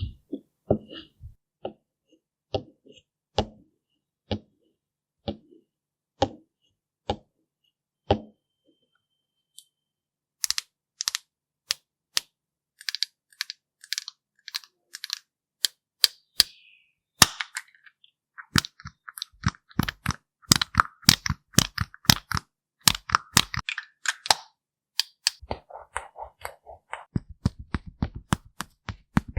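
A long run of sharp taps and clicks on hard objects. They start slow and evenly spaced, about one a second, pause briefly, then grow dense and quick from about ten seconds in, with a fast run of taps near the end.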